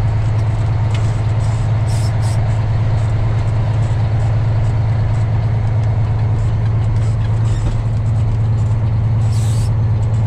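Semi truck's diesel engine droning steadily at low speed, heard from inside the cab as a loud, even low hum. Short high hisses come through about two seconds in and again near the end.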